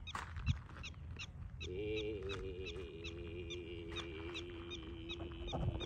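A prairie dog barking in a rapid run of short chirps, about three a second. From about a second and a half in, a man's Mongolian-style throat singing joins it: a held low drone, wavering at first and then steady, with a whistling overtone above it.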